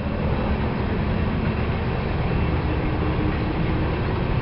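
Diesel locomotives at the head of an approaching freight train of covered grain hoppers, running with a steady low rumble.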